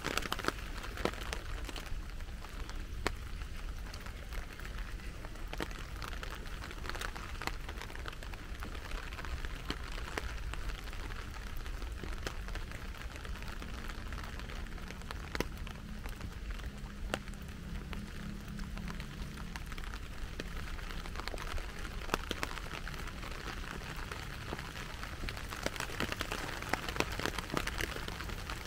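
Steady rain falling, with many small drops ticking sharply close by.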